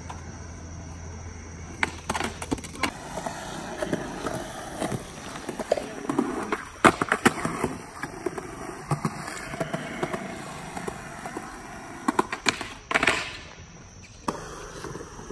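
Skateboard wheels rolling over a concrete skatepark floor, with a series of sharp wooden clacks of boards popping and slapping down. The loudest clacks come about seven seconds in and again around thirteen seconds.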